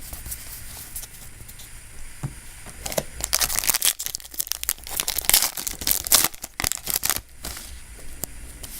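Foil booster pack wrapper crinkling and being torn open, a run of crackly rustling bursts from about three seconds in until about seven seconds in.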